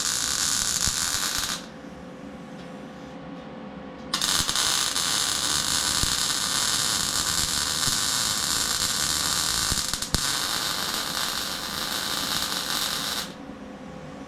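Welding arc sizzling in two runs of steady hiss. The first stops about one and a half seconds in; the second starts about four seconds in and cuts off near the end, with a faint steady hum under both.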